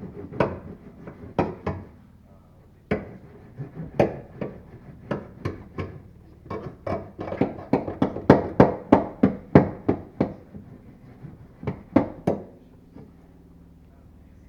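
A series of sharp knocks: scattered at first, then a quick run of about three a second through the middle, and two more near the end.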